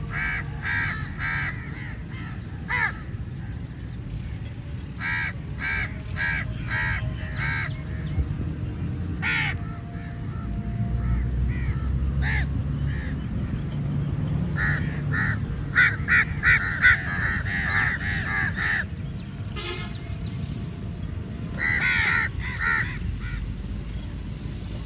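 A flock of crows cawing, many birds calling in quick overlapping bursts, densest about two-thirds of the way through, over a steady low rumble.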